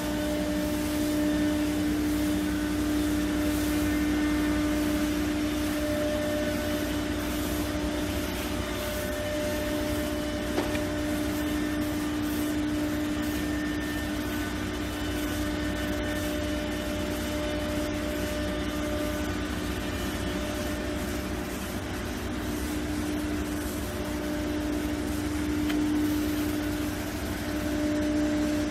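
Steady hum of running workshop machinery, with one constant low tone over an even mechanical noise.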